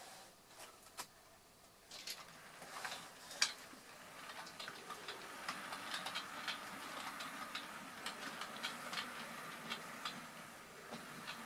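OO gauge model train running over the layout's track, its wheels clicking irregularly over rail joints and points, with a steady rolling noise building from about four seconds in.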